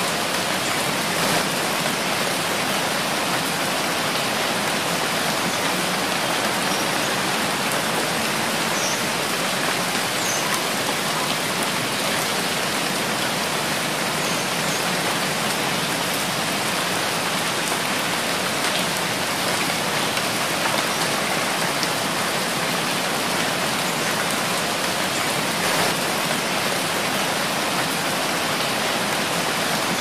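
Steady rain, an even unbroken hiss with no thunder.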